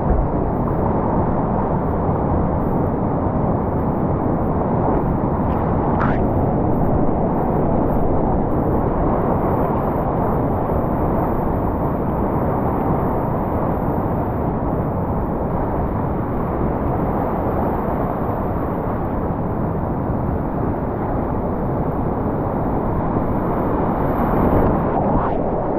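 Fast whitewater rushing and churning close around a kayak running a big river rapid, a steady loud wash of water noise.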